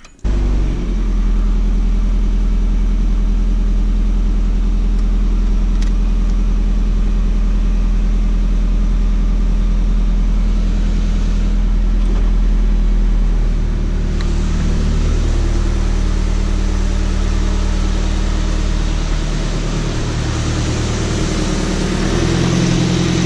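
Nissan 240SX's KA24DE 2.4-litre inline-four starting up and running at a steady idle, run after a coolant flush so the coolant level can be checked. The idle settles a little lower about 14 seconds in.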